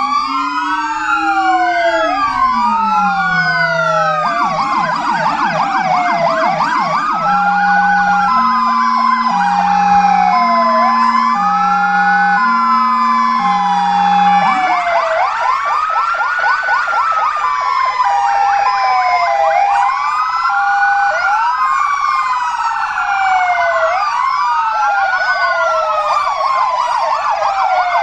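Several parked fire engines sounding their sirens together as a memorial tribute: overlapping slow wails, fast yelps and hi-lo two-tone patterns. One lower-pitched two-tone siren stops about halfway through, while the others keep going.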